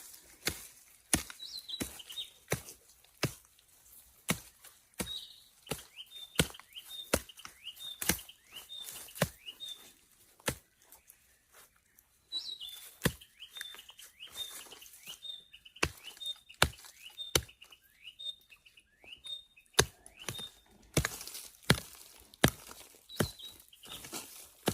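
A digging tool chopping into soil again and again at an uneven pace, about one strike a second, while digging out a plant's roots. A bird chirps in long runs of short high calls through the middle stretch.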